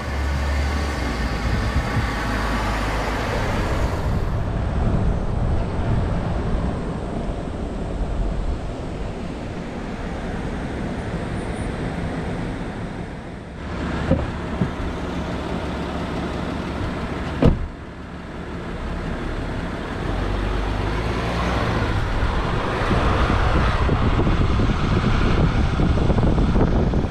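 Steady rumble and road noise of a car driving, broken by a few abrupt cuts. There are two sharp clicks, one about halfway through and another a few seconds later.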